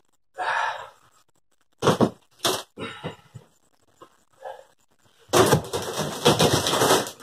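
Rotten OSB subfloor being pried up and torn away by hand. A couple of sharp cracks come early, then a longer stretch of crunching and tearing starts about five seconds in.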